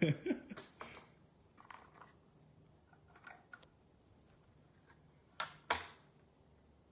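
Handling clicks from a rifle being reloaded, a round swapped in and the action closed. Scattered light clicks, then two sharper clicks close together about five and a half seconds in.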